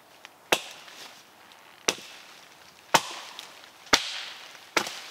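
Plumb double-bit axe chopping branches off a felled tree: five sharp strikes about a second apart.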